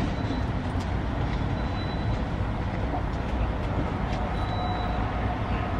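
Steady low vehicle and traffic rumble, with short high beeps from a fuel pump's keypad as its buttons are pressed, one near the middle and a longer one about three-quarters of the way through.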